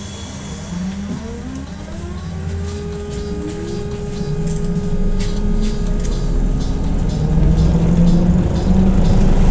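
BKM 321 trolleybus pulling away from a stop. Its electric traction drive whines in several tones that rise in pitch over the first few seconds and then level off. A low road rumble grows louder as the trolleybus gathers speed.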